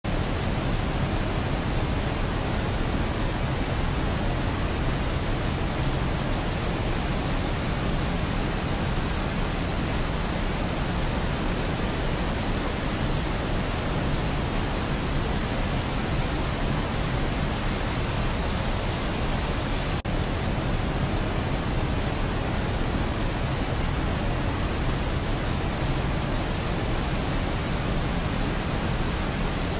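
Steady autumn rain ambience: an even, unbroken hiss of rain with no separate drops or other events. It is the cover sound for a subliminal affirmation track.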